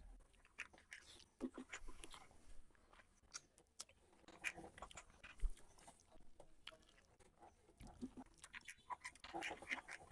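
A person chewing and eating rice and chicken curry by hand, close to the microphone: quiet, irregular mouth smacks and clicks.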